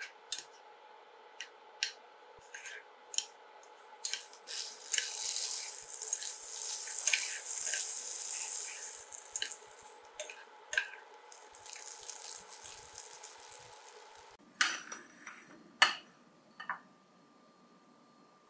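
String beans, red chili and chicken gizzards stir-fried in a nonstick pan: utensils tap and scrape the pan, then the food sizzles steadily from about four seconds in, with more stirring taps. The sizzle stops suddenly and a few sharp ceramic clinks follow as a bowl of rice is turned out onto a plate.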